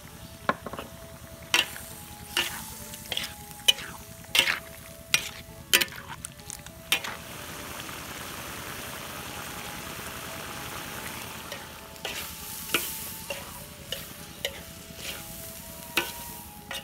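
A metal spatula scraping and knocking against a wok while a thick, simmering potato sauce is stirred. The strokes come irregularly, about one or two a second. In the middle they give way to a few seconds of steady sizzling, then the stirring knocks start again.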